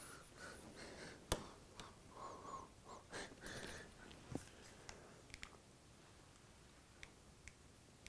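Near silence at a workbench, with faint handling rustles and a few small clicks of hands working over the track. One sharp click comes just over a second in, then only a few faint ticks.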